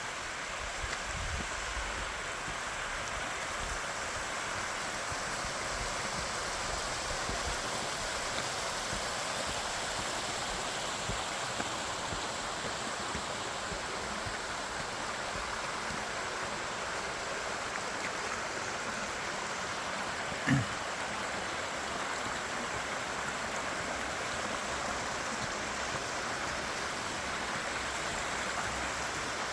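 Waterfall water pouring and splashing in a steady, continuous rush. A single brief thump about two-thirds of the way through.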